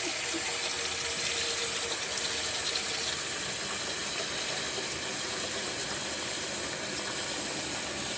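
Fish frying in hot oil in a pan, a steady sizzling hiss.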